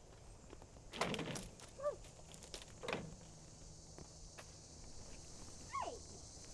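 Plastic yard cart rattling and bumping over concrete as it is pulled, with two loud clatters about a second and three seconds in. Two short falling vocal cries, one near the start and one near the end.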